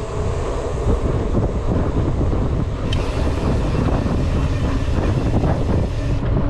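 Wind buffeting the microphone of a rider on a Trek Marlin 7 mountain bike moving at speed on a concrete road: a steady low rumble, with the bike's rolling noise underneath.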